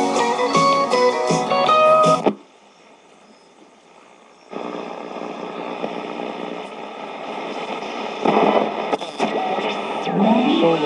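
Zenith multiband portable radio playing guitar music from a station, which cuts off suddenly about two seconds in as the band is switched. After a couple of seconds of faint hiss, static comes up as the dial is tuned across the new band, with whistling tones gliding up and down near the end.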